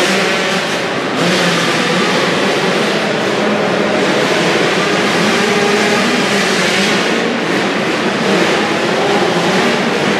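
Several 85cc motocross bikes racing together, their engines revving up and down in pitch as the riders throttle through jumps and turns.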